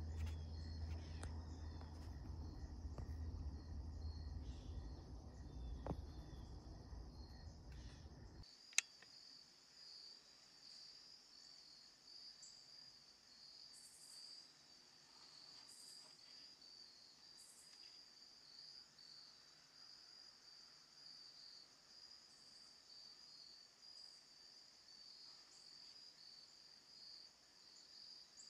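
Faint insect chorus, a steady high pulsing trill. A low rumble fills the first eight seconds and cuts off abruptly, followed by a single sharp click.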